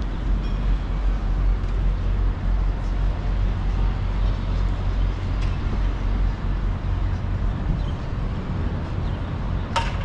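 Steady low rumble of city street traffic, with one sharp click near the end.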